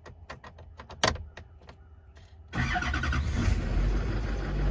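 A string of light clicks, with one sharper click about a second in, as the key is worked in the ignition. At about two and a half seconds the Duramax V8 turbodiesel starts suddenly and settles into a steady idle.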